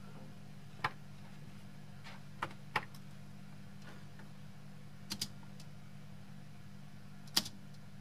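A handful of sharp clicks, some single and some in quick pairs, over a steady low hum.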